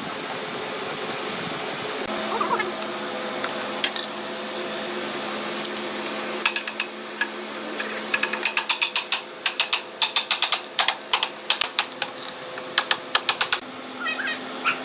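A fast run of sharp knocks, about three to four a second, starts about six seconds in over a steady low hum. A bird chirps near the end.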